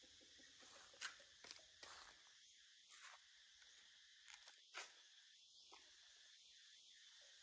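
Near silence: a faint steady hiss with a few soft, scattered crackles of dry leaves as a baby monkey climbs down a thin stick and moves about on the leaf litter.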